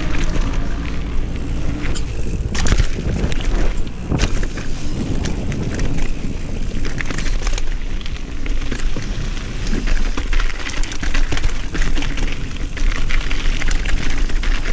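Mountain bike ridden fast down a dirt and rock trail: wind buffeting the camera microphone over tyres crunching on the ground, with many clicks and rattles from the bike as it goes over bumps.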